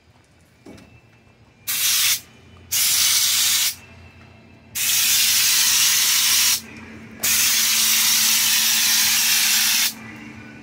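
Compressed-air spray gun spraying Raptor bed-liner coating in four hissing bursts. The first two are short; the last two last about two and three seconds. Each one starts and stops sharply as the trigger is pulled and let go.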